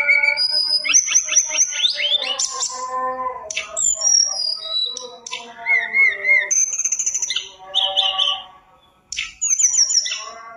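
A caged tledekan gunung songbird singing a long, varied song of clear whistles, wavering trills and fast chattering phrases, with one short pause about eight and a half seconds in.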